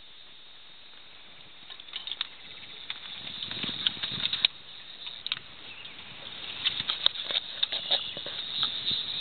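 Irregular small splashes and light knocks of water at the side of a boat, starting about two seconds in and growing busier toward the end, as a hooked steelhead is brought in close to be netted.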